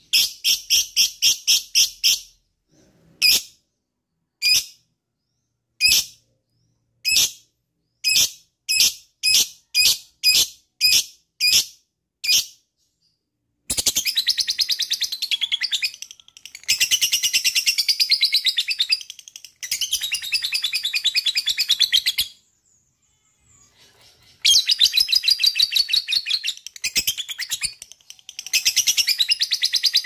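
Lovebird calling: a quick run of sharp, high chirps, then single chirps about once a second. About halfway in it breaks into long, rapid, unbroken chatters of a few seconds each with short breaks, the long call that lovebird keepers call ngekek.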